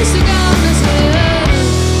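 Live rock band playing: drums, distorted electric guitar and bass guitar under a woman's singing voice. About a second and a half in, the drum hits stop and a held guitar and bass chord rings on.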